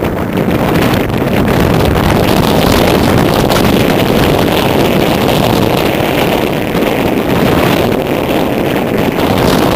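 Force-9 gale wind buffeting the camera microphone: a loud, steady, low rumbling noise.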